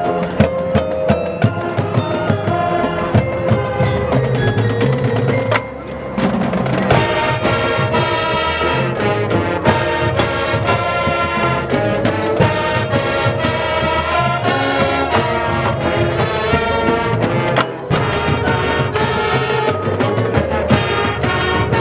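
Marching band playing: brass over sharp, regular percussion strokes. After a short break about six seconds in, the full band comes back in denser and fuller.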